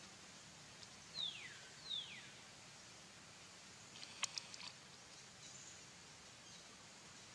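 Baby macaque giving two short, high squeals, each falling steeply in pitch, then a few sharp clicks about four seconds in.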